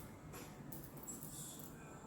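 Faint rustling and a few light clicks from handling a small item such as a necklace, over a low steady background hum.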